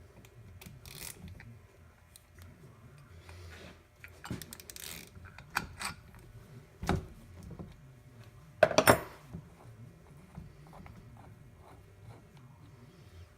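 Scattered metallic clicks and clinks of hand tools working the supercharger pulley install tool as it is loosened and removed from the newly pressed hub. A few sharper knocks stand out, a double knock about nine seconds in being the loudest.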